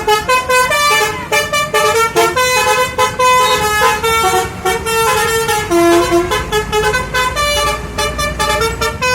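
Indonesian 'telolet' bus horn, a multi-tone musical horn, playing a quick melody of short notes with several pitches sounding together, loud and unbroken, over a low rumble.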